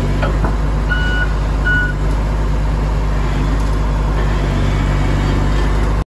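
Komatsu D65PX-15 bulldozer's six-cylinder diesel running steadily, with its reversing alarm giving two short beeps about a second in.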